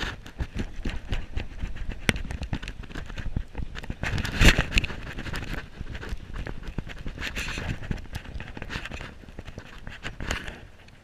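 Fly reel being cranked in while playing a salmon, a fast run of clicks, mixed with clothing rustling against the chest-mounted camera and a louder knock about four and a half seconds in.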